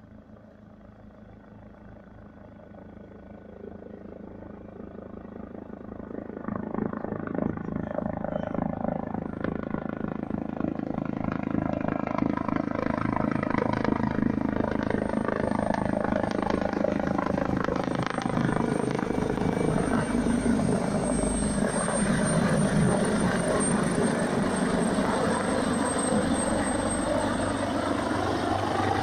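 AgustaWestland AW139 helicopter approaching and landing. Its rotor noise grows steadily louder over the first ten seconds or so, then holds loud and steady while it settles onto the ground, with a thin high whine over it.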